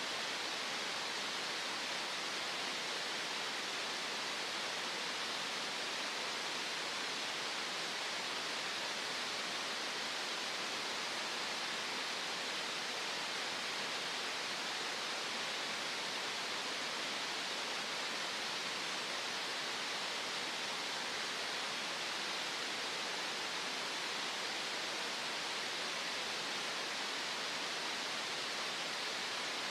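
Synthetic green noise: a steady, unchanging hiss, strongest in the upper-middle range and thin in the bass.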